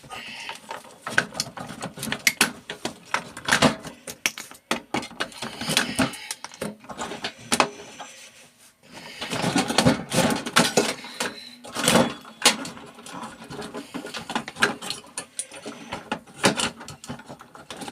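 Plastic clips and sheet-metal parts of a microwave being prised apart and handled, a run of irregular clicks, knocks and rattles with a brief lull about eight seconds in.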